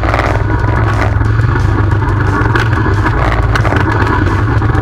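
ATV engine running at a steady drone while riding a rough dirt trail, with rattles and knocks from the machine going over bumps.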